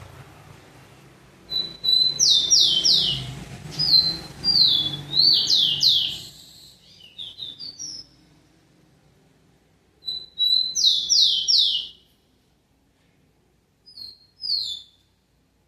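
Rufous-collared sparrow (tico-tico) singing: clear whistled notes and quick falling slurs in three song bouts with pauses between, the first the longest and the last short.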